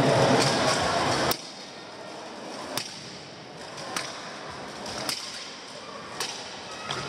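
Weapons striking steel armour and shields in an armoured buhurt melee: sharp single clanks about once a second. A louder sound cuts off abruptly a little over a second in.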